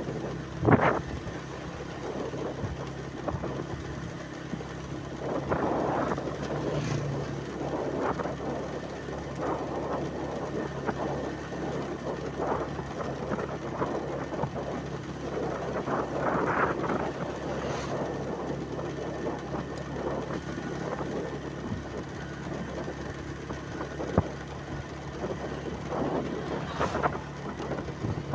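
A vehicle running steadily: a continuous low hum with irregular rattles and knocks, and one sharper knock about a second in.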